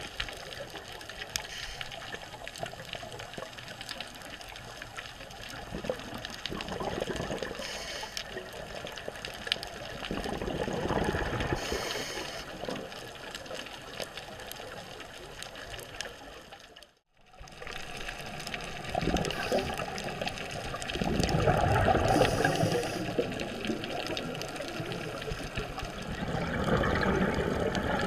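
Underwater scuba-dive sound: a diver's exhaled regulator bubbles gurgling in swells lasting a few seconds each, coming every several seconds over a steady underwater hiss. The sound cuts out for a moment about two-thirds of the way in.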